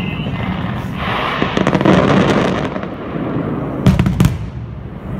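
Fireworks display going off: a couple of seconds of dense crackling from bursting stars, then two sharp bangs close together about four seconds in.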